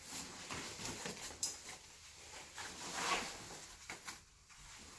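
Backpack being lifted and pulled on over the shoulders: its fabric and straps rustle and shuffle, with a sharp click about one and a half seconds in.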